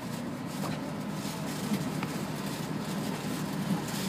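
Steady low engine hum and rumble of a city route bus, heard from inside the passenger cabin, with a few faint light ticks.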